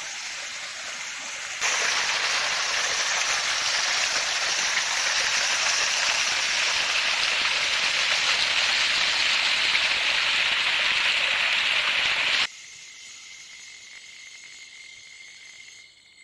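Rushing, splashing water of a river at a waterfall: a steady hiss that jumps louder about two seconds in and cuts off abruptly about twelve seconds in to a much fainter water hiss with a thin steady whine.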